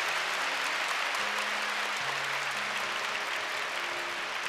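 A huge arena crowd applauding steadily, tapering slightly near the end. Soft background music with held chords plays underneath.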